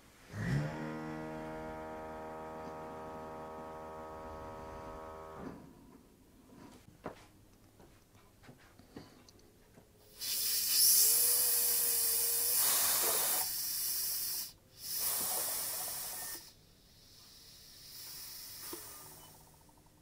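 Audi A3 ABS pump motor starting with a quickly rising whine and running steadily for about five seconds before stopping, as it is cycled during the brake-bleeding procedure. Later comes a loud hissing in two spells, about halfway through and near the three-quarter mark.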